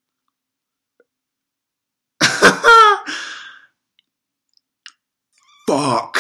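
A man's short, harsh, cough-like vocal outburst about two seconds in. Then silence, and near the end a drawn-out voiced exclamation.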